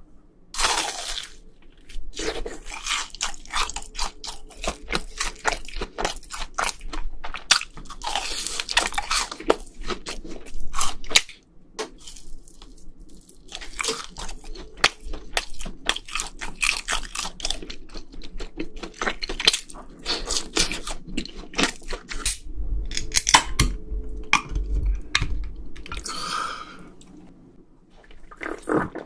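Close-miked crunching and chewing of fried food: crisp fried cheese balls and a fried cheese stick cracking between the teeth in rapid crunches, with a short pause partway through. Near the end the crunching gives way to gulps from a drink can.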